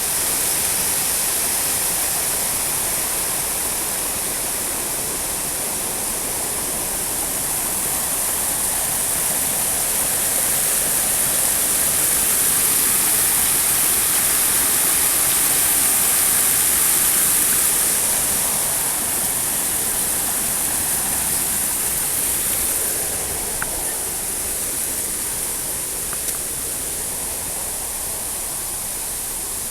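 Small jungle waterfall: water rushing and splashing in a steady hiss, easing slightly about two-thirds of the way through.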